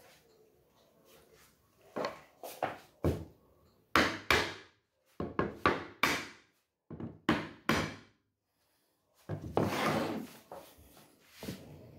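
A mallet knocking laminated wood panels together as a shelf carcass is tapped into its grooves: about a dozen sharp knocks, single or in quick runs of two or three. Near the end comes a longer scraping rub of wood on wood.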